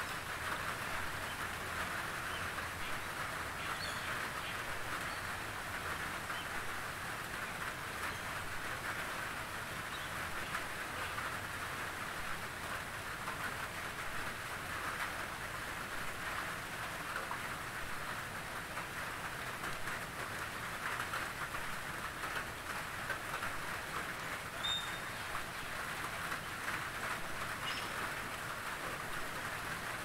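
Steady rain falling on foliage, an even hiss with a fine patter of drops on wet leaves.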